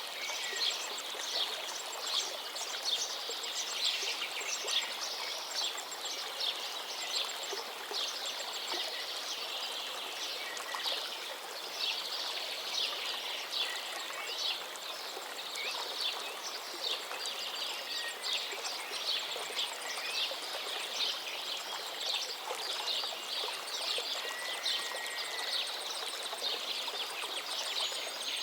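A chorus of songbirds singing over a steadily flowing stream, with many overlapping quick chirps and trills.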